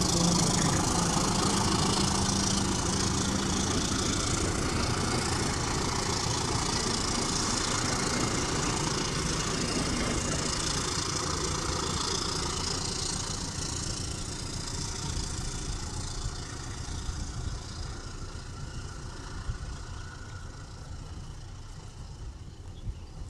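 Passenger train hauled by a CC 201 diesel-electric locomotive: engine drone and rolling noise, with a steady low hum for the first few seconds, fading gradually.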